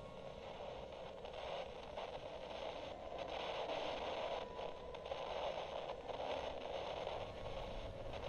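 Static-like hiss, growing louder about three seconds in and broken by brief dropouts now and then.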